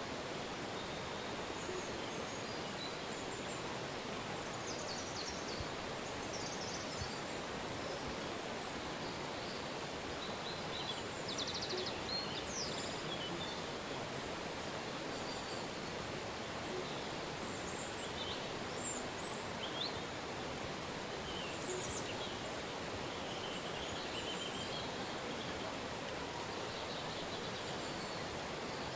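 Steady rushing of a river, with many short, high bird calls and trills scattered over it.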